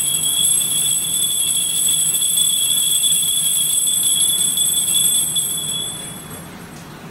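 Altar bells rung at the elevation of the chalice during the consecration, a steady high-pitched ringing that dies away about six seconds in.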